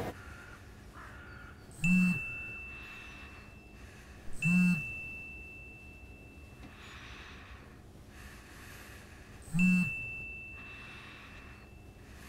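A mobile phone getting three incoming message alerts, each a short vibration buzz with a high chime that rings on for two or three seconds and fades. The first two come close together and the third about five seconds later.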